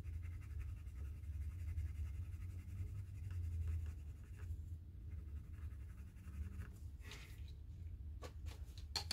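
Castle Arts colored pencil scratching on paper as a swatch box is shaded in, the shading stopping about halfway through, over a low steady hum.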